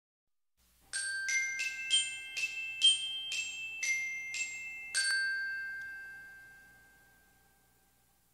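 Intro jingle of bright glockenspiel-style chimes: about ten struck notes at roughly two a second, then a last note about five seconds in that rings on and fades out over some three seconds.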